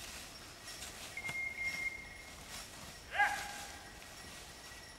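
A dog whistle blown to handle a hunting dog. A faint held note comes about a second in, then a louder, lower blast near the middle swoops up quickly and holds its pitch.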